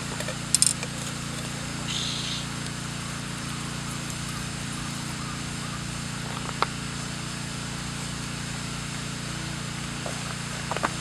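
Campfire burning, with a few sharp pops and clicks and a short hiss over a steady low background noise.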